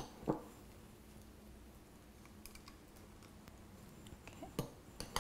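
A metal disher scoop clicking and tapping against a glass bowl while scooping cooked brown rice. There are a few light clicks: two sharper ones right at the start, then fainter ones over the last couple of seconds.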